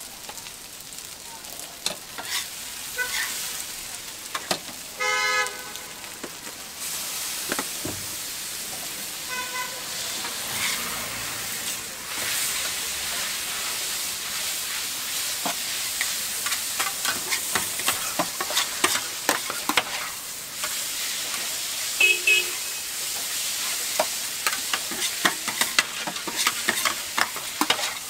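Noodles sizzling on a flat steel teppanyaki griddle while metal spatulas scrape and clack against the plate, the sizzle getting louder about seven seconds in. A horn beeps in short pulses about five seconds in, and briefly again near ten seconds and past twenty seconds.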